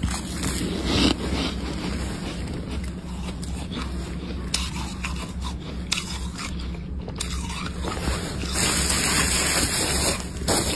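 Flaky freezer frost crunching and scraping as it is handled and broken apart by hand, a dense run of small crackles that grows louder about eight seconds in.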